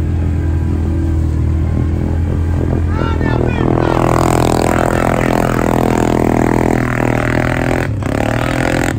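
ATV engine running under load in deep pond water, its revs climbing about three seconds in and then held high, rising and falling.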